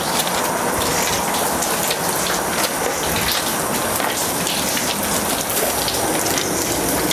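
A steady, even hiss that holds at the same level throughout, with faint crackle in it.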